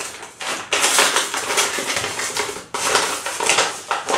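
Packaging crinkling and rustling as a white mailer is handled and torn open by hand, in loud bursts with a brief pause about two-thirds of the way through.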